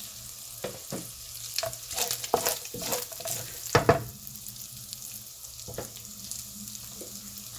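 Diced bacon sizzling in a hot non-stick frying pan, with a wooden spoon scraping and knocking through it for the first half, then a steady sizzle alone.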